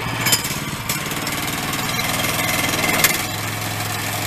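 Woodland HM122 portable sawmill's gasoline engine running as its throttle is brought up slowly, with the engine note shifting about three seconds in. Two sharp clicks come about a third of a second in and about three seconds in.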